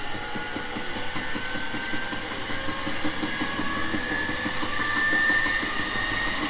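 Onboard running sound of a JR 701 series 5500 subseries electric multiple unit. The steady rumble of wheels on the rails carries a traction-motor and inverter whine that slowly rises in pitch as the train gathers speed.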